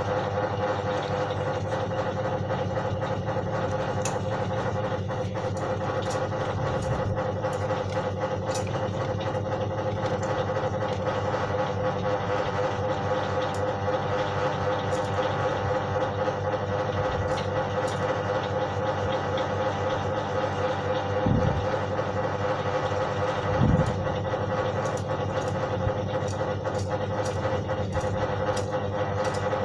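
A small electric motor running steadily, with scattered light clicks and two brief thumps near the end.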